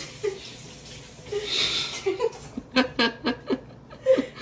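A Pembroke Welsh Corgi puppy licking and slurping whipped cream with its head inside a paper cup, a wet hissing sound. Over the last couple of seconds a person chuckles in short bursts.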